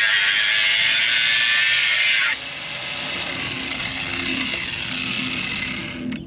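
Power tool cutting through the bell housing of a Nissan CD009 six-speed transmission. It makes a loud, steady grinding for about two seconds, then drops to a quieter, lighter cut and stops shortly before the end as the cut is finished.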